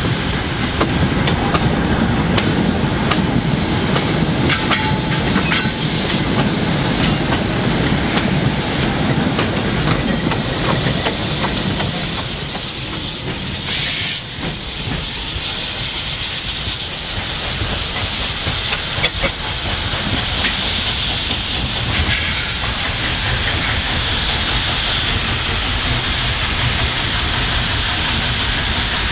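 Small steam tank engine number 51241 working a short goods train: rumbling running and wheel noise at first, then from about twelve seconds a steady loud hiss of steam from the cylinder drain cocks as the engine moves off.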